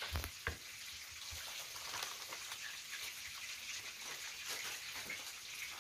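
Hot cooking oil crackling and sizzling in a frying pan: a steady hiss dotted with tiny pops. There are a couple of dull thumps in the first half second.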